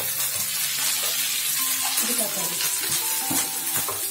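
Chopped onions, curry leaves and green chillies sizzling loudly in hot oil in a nonstick frying pan, stirred with a wooden spatula that scrapes across the pan.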